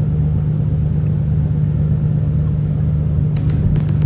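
Steady low drone of an engine running, one deep unchanging tone over a rumble. Near the end a quick run of sharp ticks starts.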